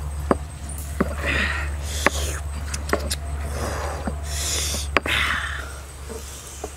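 Stone pestle pounding chopped chilies in a stone mortar: sharp stone-on-stone knocks, irregular and roughly one a second.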